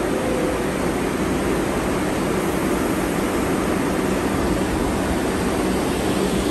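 Steady rushing hum of a New York City subway shuttle train standing at the platform, its equipment running as the doors close.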